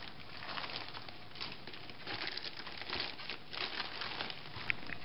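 Plastic container liner crinkling and rustling irregularly as hands pull and unfold it, with a short high squeak near the end.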